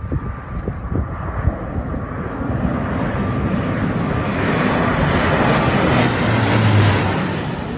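Jet airliner coming in to land and passing low overhead. Its engine roar builds to a peak, then a high whine drops in pitch as it goes past. Wind gusts buffet the microphone in the first second or so.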